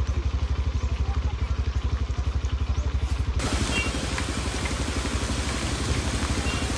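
A small engine idling with a rapid, even putter. About halfway in, a steady hiss of heavy rain and splashing floodwater joins it as a vehicle wades through the flooded road.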